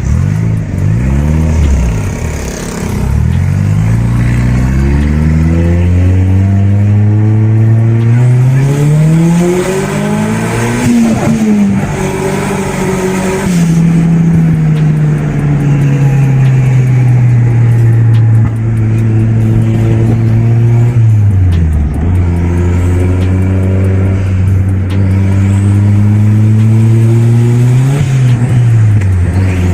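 Toyota 4E-FTE turbocharged four-cylinder engine running under load, its pitch climbing slowly for about ten seconds, dropping sharply, holding steady, then dipping and climbing again before dropping once more near the end.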